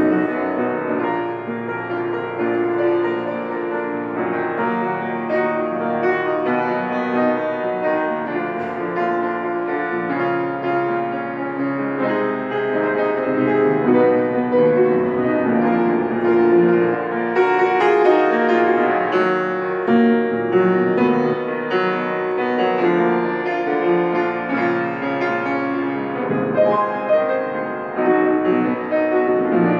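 Solo piano music: a continuous, flowing piece with many notes sounding together.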